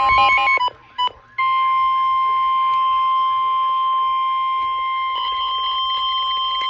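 Emergency alert tones. A steady single-pitch warning alarm tone, typical of NOAA Weather Radio, is overlaid with rapid beeping at the start. It cuts out briefly apart from one short blip, then sounds unbroken for about five and a half seconds. Pulsing beeps are layered over it in the last second and a half.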